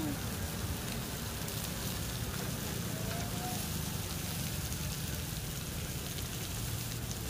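Steady hiss of light rain, with a low rumble of passing road traffic underneath.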